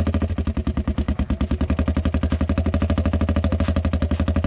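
ATV engine idling loud and steady with a rapid, even pulse.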